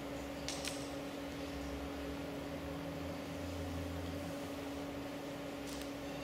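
Steady low electrical or fan hum over an even hiss of room noise, with a few faint clicks about half a second in and again near the end.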